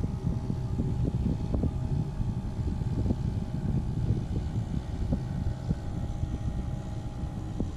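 Wind buffeting the microphone in an uneven low rumble, over a steady distant engine drone from a small motorboat's outboard crossing the harbour.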